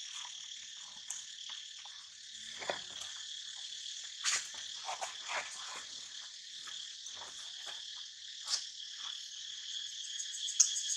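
Steady chorus of insects, a continuous high buzzing and trilling, with a few short, faint clicks and rustles over it.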